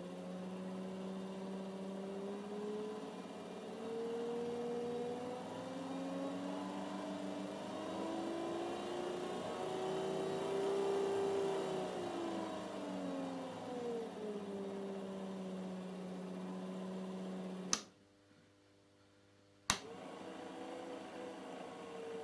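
Hill Billy golf trolley electric motor driving a Myford lathe's lead screw, its whine rising in pitch as it speeds up and then falling as it slows. About eighteen seconds in it cuts off with a click, stays near silent for about two seconds, then starts again with another click.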